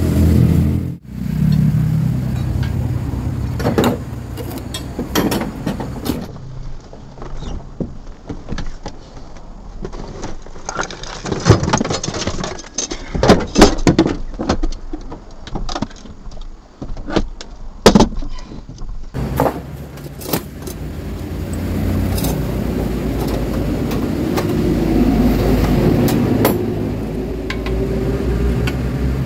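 An engine running steadily, broken in the middle by a stretch of sharp metallic clinks and knocks.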